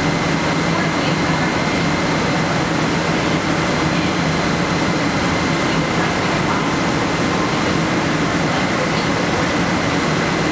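Laboratory wind-wave tank running at high wind speed: a steady, loud rush of blown air and churning, breaking waves, with a steady high whine and a low hum from the wind machinery.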